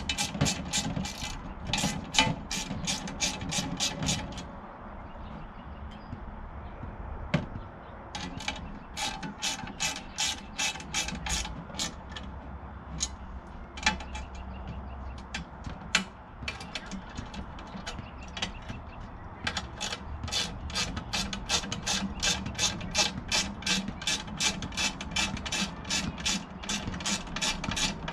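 Hand ratchet with a 10mm socket clicking as it tightens nuts on bolts, in runs of quick strokes at about four clicks a second, broken by short pauses.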